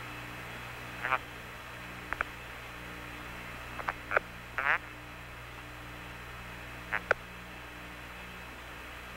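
Apollo air-to-ground radio link hum: a steady low drone with a fainter tone that cuts in and out, broken by brief chirping crackles of interference about 1, 2, 4, 4.5 and 7 seconds in.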